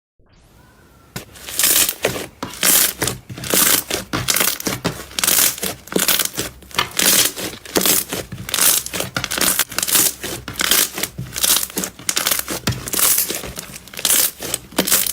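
Slime being squeezed and pressed by hand, giving dense crackling and popping in quick repeated bursts, several a second, loud from about a second in.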